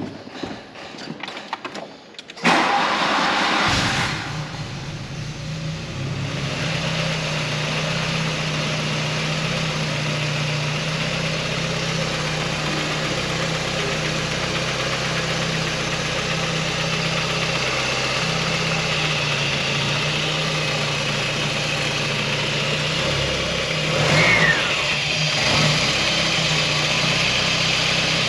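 1986 Volkswagen Scirocco's four-cylinder petrol engine cranked by the starter and catching after about a second, then settling into a steady idle; it starts easily. The idle rises briefly once, about 24 seconds in.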